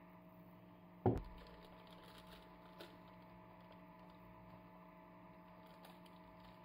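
Glass mixing bowl and spatula being handled while thick choux dough is scraped from the bowl: one sharp knock with a dull thud about a second in, a faint click near three seconds, over a steady low hum.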